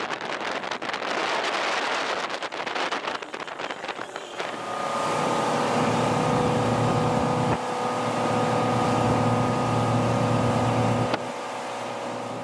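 Wind buffeting the microphone on a speeding motorboat, then, about four seconds in, the motorboat's engine running at a steady pitch over the rush of its churning wake.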